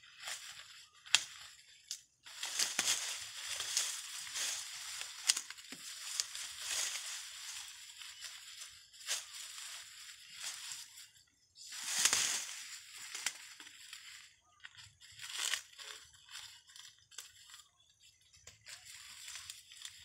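Dry corn husks and leaves crackling and tearing as ears of field corn are husked and pulled from dry standing stalks by hand, in irregular bursts with a few sharp snaps; the loudest tearing comes about twelve seconds in.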